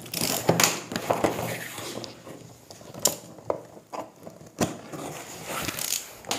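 Packing tape being peeled and ripped off a cardboard box, with cardboard scraping and rustling as the flaps are pulled open; a string of short irregular rips and knocks.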